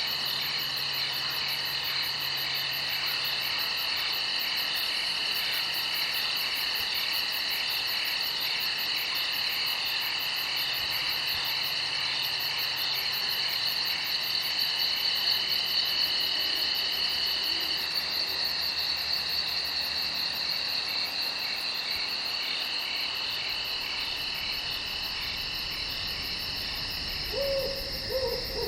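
Night chorus of crickets and other insects: several overlapping continuous high trills, one of which stops about two-thirds of the way through. A few short lower calls are heard near the end.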